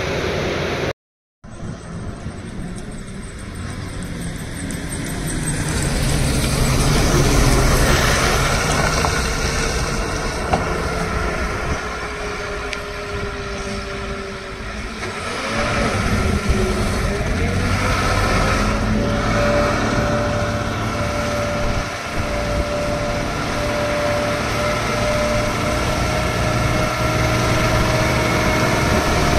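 Diesel engine of a loaded Tata Signa 5530.S tractor-trailer pulling around a hairpin bend under load, a steady heavy drone that swells and eases with other traffic mixed in. A thin whine comes in about halfway, wavers, then holds steady. Brief dropout about a second in.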